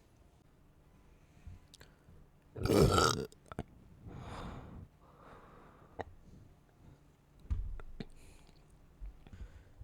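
One loud burp from a person gulping carbonated soda, about three seconds in, followed by a softer noisy sound a second later and a few small clicks and knocks.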